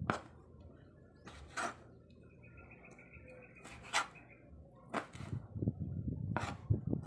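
Kitchen knife cutting pieces of salpo on a plastic cutting board: about six sharp single knocks of the blade on the board, spaced unevenly a second or so apart.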